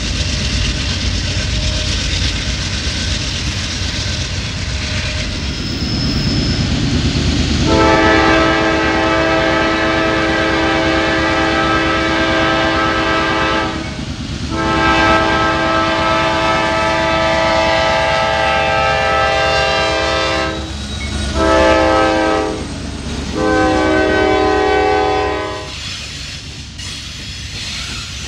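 Freight train rolling past with steady wheel noise, then a diesel locomotive's air horn sounds a chord of several notes in two long blasts, a short one and a long one: the standard grade-crossing signal. The locomotives' rumble follows as they pass close by near the end.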